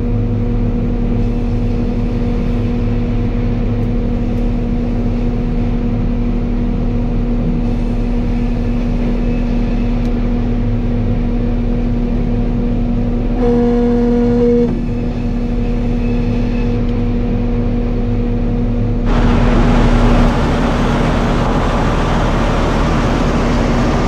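Sawmill machinery running steadily, with a constant hum under it. About nineteen seconds in it suddenly turns louder and hissier.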